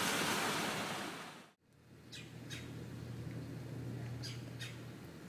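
Car noise that cuts off abruptly about a second and a half in, followed by a low steady hum and a bird chirping in two quick pairs.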